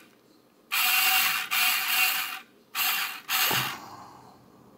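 Electric cigarette-making machine's motor whirring in four short runs, each with a steady whine, stopping and starting as it pushes tobacco into the tube. A low dull knock comes about three and a half seconds in.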